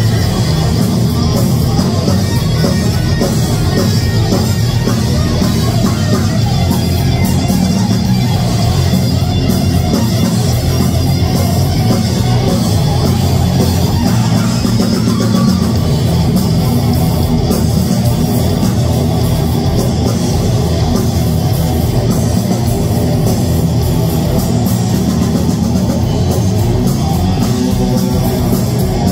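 Live heavy metal band playing loud, with distorted electric guitars over a drum kit, steady and unbroken.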